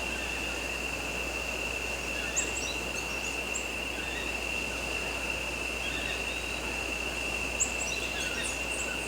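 Rainforest ambience: a steady high-pitched insect drone over a constant hiss, with short high bird chirps in two brief clusters, about two seconds in and near the end.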